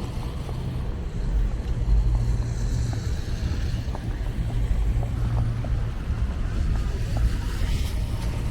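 Wind gusting over the microphone during a snowstorm: a steady low rumble that swells and eases.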